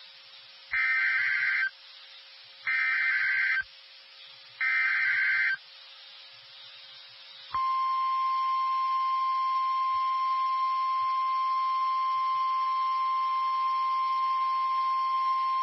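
NOAA Weather Radio Emergency Alert System activation. First come three short, screechy bursts of SAME digital header data, each just under a second long with about a second between them: the coded alert for the winter storm warning. About seven and a half seconds in, the steady single-pitch 1050 Hz warning alarm tone starts and holds, the signal that sets off weather radio receivers.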